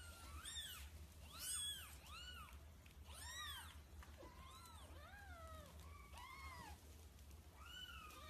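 Newborn kittens mewing: a string of about fifteen short, thin, high-pitched mews, each rising and then falling in pitch, coming in quick clusters and fainter toward the end.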